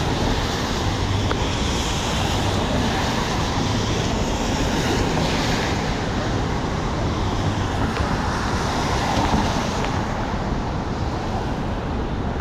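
Steady traffic noise on a rain-soaked city street, with the hiss of wet road and falling rain blended into an even roar that holds at one level throughout.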